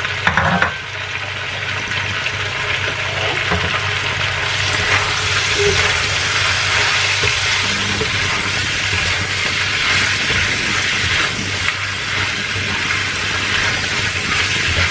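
Duck feet and lotus root sizzling in a stainless steel wok while a spatula stirs them, over the steady low hum of the electric cooktop, which is noisy.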